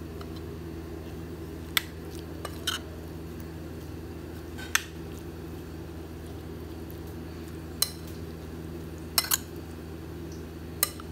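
A metal spoon clinking against a plate while tossing a chopped cucumber and onion salad in tamarind sauce: about seven sharp clinks at irregular intervals over a steady low hum.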